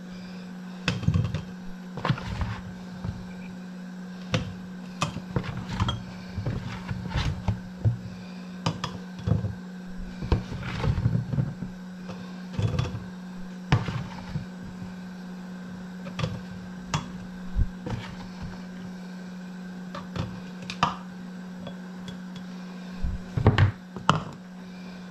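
Cooked new potatoes spooned through a plastic canning funnel into glass jars: irregular soft knocks and clinks of potato and spoon against funnel and glass, over a steady low hum.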